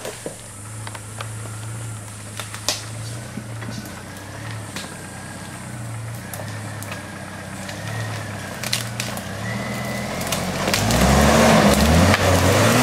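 Jeep Wrangler Rubicon crawling slowly over fallen branches, its engine running low and steady while sticks crack and snap under the tyres. The engine grows louder near the end as the vehicle comes close.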